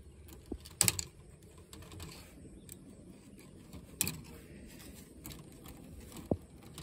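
A few scattered light clicks and taps as a plastic super-glue bottle and the balsa model are handled, over faint background.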